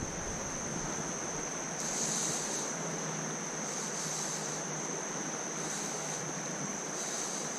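Creek water rushing steadily over rocks, an even wash of noise.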